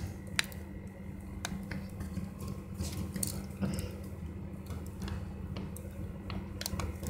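Fingers picking at the sealed lid of a Kinder Joy plastic cup, trying to peel it open: scattered small clicks and crinkles of plastic and foil, the sharpest about half a second in, over a steady low hum.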